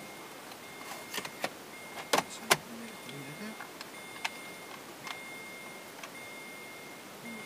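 Screwdriver and plastic dashboard trim of a Chevrolet Agile clicking and knocking as the centre panel around the air-distribution selector is worked on: a few sharp knocks about two seconds in, the loudest two close together, then lighter clicks. A faint high beep repeats about once a second.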